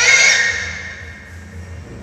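A recorded bird call played loudly through a bird-caller MP3 speaker: one shrill call with a slight upward bend in pitch that starts sharply and fades over about a second. A faint low hum lies under it.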